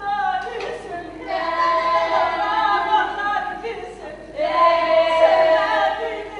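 Women's voices singing a song together, with long held notes.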